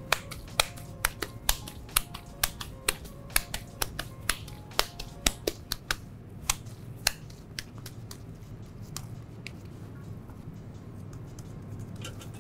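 A raw minced-beef burger patty being patted between the hands as it is shaped: a run of sharp, wet slaps about two a second, stopping about seven seconds in.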